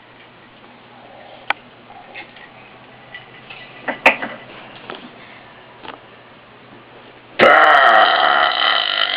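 A person letting out a long, loud deliberate burp that starts about seven seconds in and lasts more than two seconds. Before it there is only low room noise with a few faint clicks.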